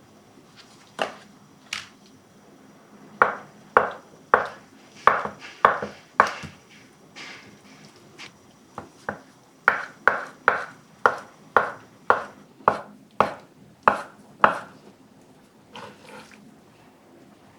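Kitchen knife chopping on a cutting board: a run of sharp knocks at about two a second, with a few scattered strokes before and after.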